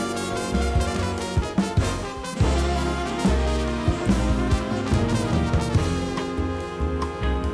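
Upbeat jazz music with brass and a drum kit, with regular drum hits.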